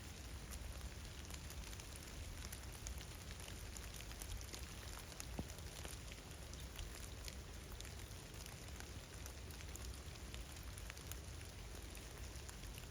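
Light, steady rain with scattered drops ticking, over a low rumble.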